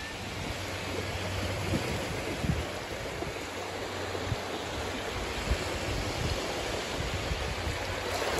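Shallow sea waves washing in over wet sand at the water's edge, a steady rushing hiss.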